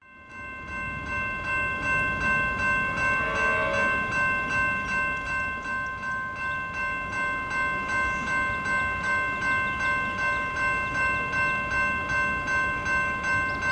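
Railway level crossing warning bell ringing fast and evenly, about two and a half strokes a second, the signal that a train is approaching. It fades in at the start.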